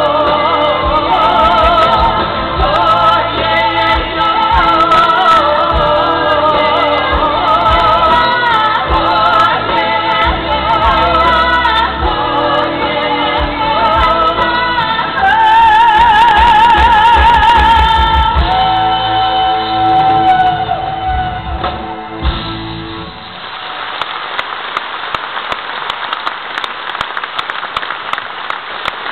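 Live pop song ending: a female lead vocal with band and backing singers, closing on a long held note with vibrato and then a lower held note. The music stops about three-quarters of the way through and audience applause follows.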